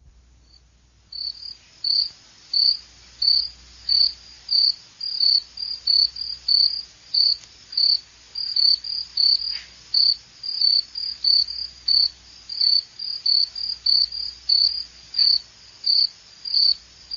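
Cricket chirping: short, high chirps repeating evenly, about one and a half a second, starting about a second in.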